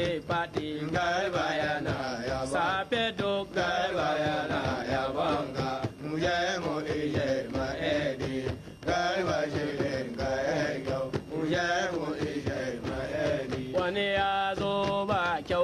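Male voices chanting a Hausa praise song with wavering, melismatic lines, accompanied throughout by small hand-played kotso drums.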